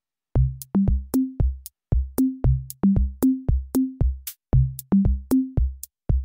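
Electronic music: a drum-machine beat of deep, pitched bass-drum notes stepping between a few pitches, each with a sharp click, about three hits a second. It starts after a brief moment of silence.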